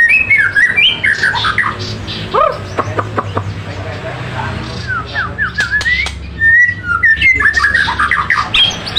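Murai (Copsychus) songbird in full, persistent song: rapid varied phrases of whistled, gliding notes and harsher squawky notes, with a brief lull in the middle.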